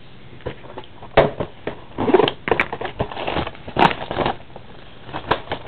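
Trading cards and their packaging being handled: an irregular run of sharp clicks and snaps mixed with short crinkling rustles.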